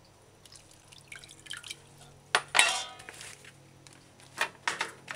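Water splashing and dripping in a stainless steel bowl as broccoli florets are broken apart and rinsed. A few short, sharp splashes and knocks come against the metal bowl, about halfway through and again near the end.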